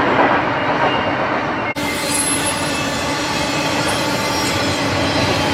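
BNSF freight train rolling past on the mainline, a steady rumble of wheels on rail with faint wheel squeal. The sound cuts abruptly to another stretch of the passing train a little under two seconds in.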